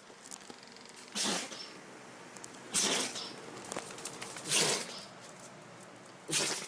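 Maltese dog sneezing four times in a row, one short sharp sneeze about every one and a half to two seconds.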